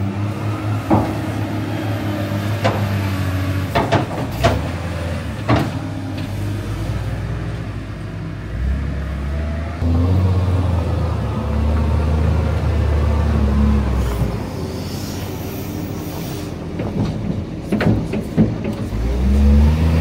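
Diesel engines of a wheel loader and tractor running. The engine note grows louder for several seconds about halfway through and again near the end, as the loader works manure into a spreader, with sharp metal clanks of the bucket now and then.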